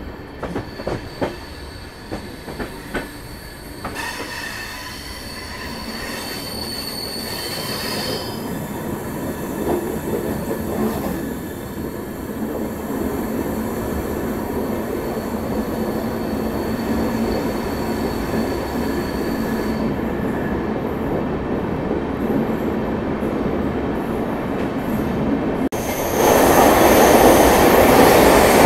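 Passenger train running, heard from an open coach door: a few wheel clicks over rail joints at first, then a steady rumble with thin high wheel squeal on the curves. About 26 s in the sound jumps much louder as the train enters a tunnel.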